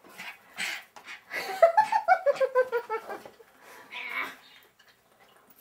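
A person laughing, a quick run of about ten laughs falling in pitch, followed by a short breathy noise.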